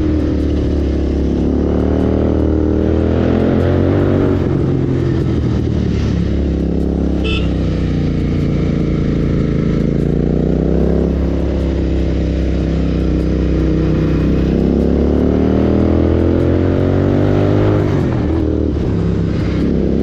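Royal Enfield Continental GT 650's parallel-twin engine under way, its revs climbing and dropping back several times as the rider accelerates and eases off, with wind rush over the microphone.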